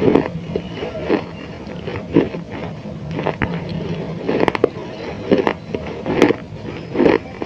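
Close-miked chewing of baked clay: a string of irregular crunches, roughly one a second, some with sharp crackles.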